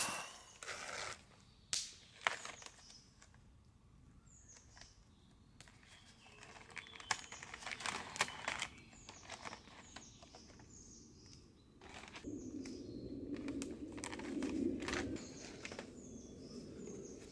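Quiet outdoor camp ambience: scattered knocks and rustling of people moving and handling things, with short high chirps of a small bird recurring every second or two. A patch of louder rustling comes about three quarters of the way through.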